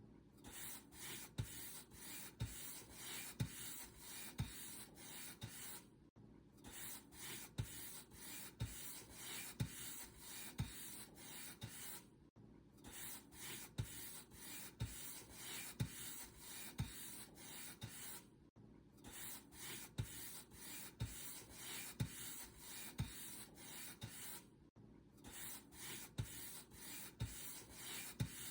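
Paint brush bristles stroked back and forth over a surface in quick, even strokes, about one and a half a second. Each stroke is a soft hiss with a light thud, and there is a brief pause about every six seconds.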